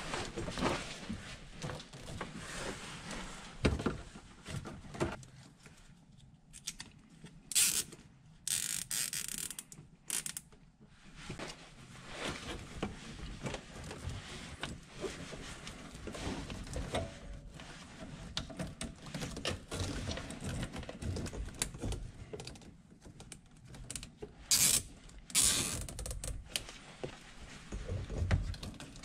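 Plastic zip ties ratcheting as they are pulled tight around wiring, in short zips about a third of the way in and again near the end. Between them, clicking and rustling of wires and plastic being handled.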